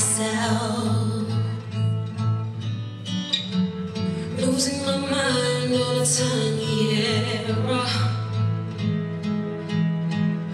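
Music: a slow song with guitar and a singing voice.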